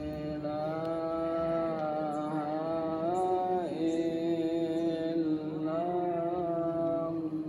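A voice chanting Islamic prayers in long held notes that slide and waver in pitch, one drawn-out phrase flowing into the next.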